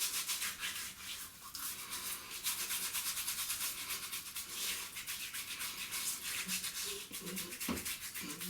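Coconut oil being rubbed by hand onto stubble: quick, steady, scratchy rubbing strokes repeated several times a second.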